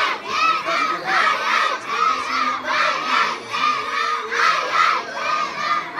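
Crowd of spectators, many of them schoolchildren, shouting and cheering in a steady rhythm, about two shouts a second.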